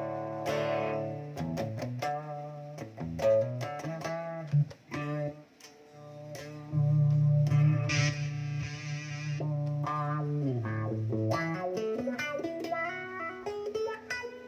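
Electric guitar played through a Zoom G1Xon multi-effects pedal: plucked notes and chords with an effected tone, a chord held for a few seconds about halfway through, then notes sliding down in pitch.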